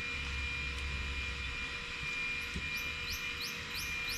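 Outdoor morning ambience: a steady high hiss and hum with a low rumble that stops about a second and a half in. From a little past halfway, a bird calls repeatedly with quick rising chirps, about three a second.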